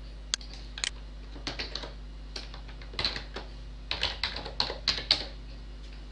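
Computer keyboard typing: irregular runs of short keystroke clicks, busiest in the second half, as a logon password for the administrator account is typed. A steady low hum runs underneath.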